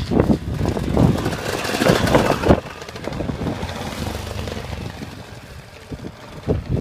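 Off-road trail motorbikes riding past on a gravel track: engines loud and close for the first couple of seconds, then fading as the bikes ride away, with another bike coming close near the end. Wind buffets the microphone, and the sound cuts off suddenly at the end.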